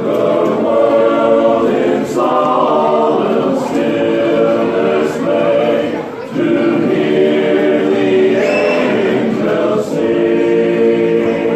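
Men's barbershop chorus singing a cappella in close harmony: held chords, with brief breaks between phrases.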